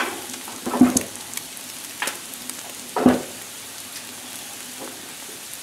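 Scrambled eggs and sliced potatoes sizzling steadily on a Blackstone steel flat-top griddle, with a few short sharp knocks, about a second apart early on, then one near the middle.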